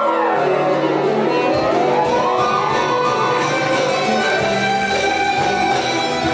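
Turkish art music ensemble of kanun, ney, ud, bağlama, violin and keyboards playing an instrumental passage, with a fast melodic run that sweeps down and then climbs back up in the first couple of seconds.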